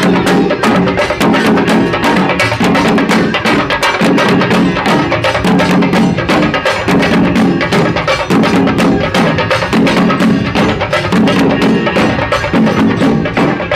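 Street drum band playing stick-beaten drums in a fast, loud, driving rhythm, with a deeper pitched drum tone repeating in short phrases.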